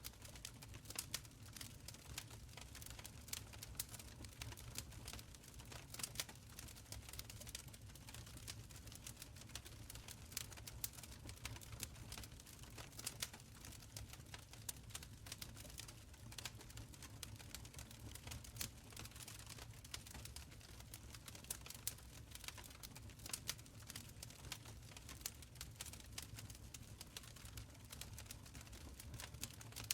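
Wood fire burning in a stone fireplace, crackling with many small irregular pops and snaps over a low rumble.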